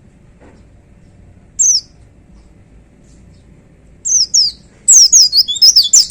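White-eye (pleci) singing: a single high, falling note about one and a half seconds in, two more around four seconds, then a fast run of high downslurred notes near the end.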